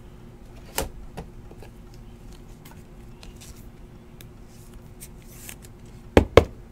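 Hands handling trading cards and clear plastic card holders, with a sharp tap about a second in, faint ticks and rustling, and two sharp taps close together near the end as a holder knocks on the table. A faint steady hum runs underneath.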